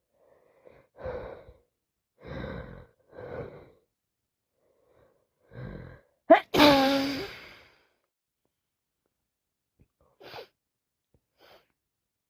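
A woman with a cold sneezing. Four catching breaths build up over the first six seconds, then one loud sneeze bursts out sharply and trails off over about a second. Two short faint breaths follow near the end.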